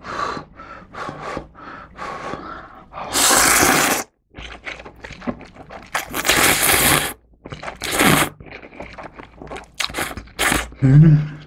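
Slurping and chewing of springy ramen noodles: two long, loud slurps about three and about six seconds in, with wet chewing and smacking between them.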